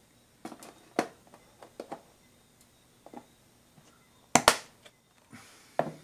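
Plastic food-container lids clicking and tapping as they are handled, pulled off and set down on a wooden table: a series of short sharp clicks, the loudest a quick double click about four and a half seconds in.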